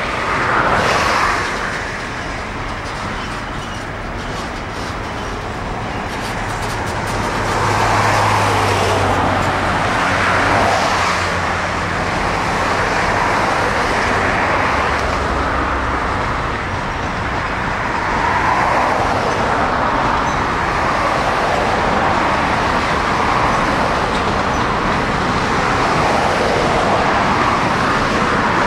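Freight train wagons rolling past on the track: a continuous rumble and rush of steel wheels on rail that swells and eases every few seconds.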